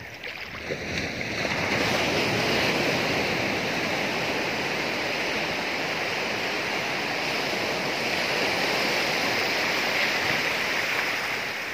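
Sea surf breaking and washing up the beach, a steady rushing noise that swells about a second or two in and eases off near the end.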